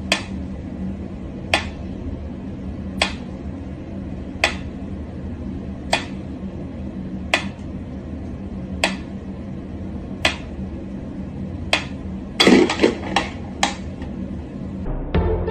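Mechanical pyramid metronome ticking slowly and evenly, about one tick every second and a half, over a steady low hum. Near the end comes a short flurry of several louder clicks and knocks.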